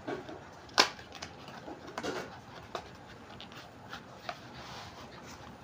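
Headlight-bulb packaging being handled and opened by hand: a sharp click about a second in, then crinkling and scraping and a few lighter clicks.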